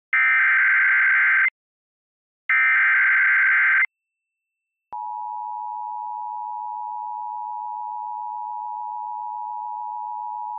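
Emergency Alert System broadcast: two buzzing bursts of SAME header data with a short silence between them, then about five seconds in the steady two-tone EAS attention signal starts and holds. The header bursts are louder than the attention tone. Together they announce a severe thunderstorm warning.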